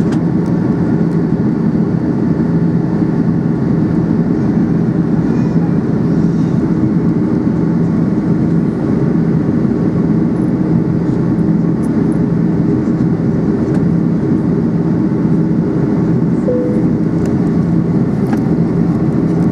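Steady cabin noise inside an Airbus A330-200 in the climb after takeoff: the drone of its jet engines and rushing air, with a constant low hum.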